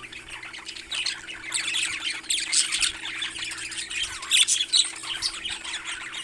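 Parrots squawking and chirping in a continuous overlapping chatter, busiest from about two seconds in, over a faint steady hum.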